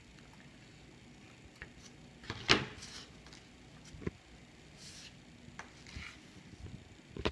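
Scattered knocks and clicks from scissors and hands handling yarn on a tabletop, the loudest about two and a half seconds in.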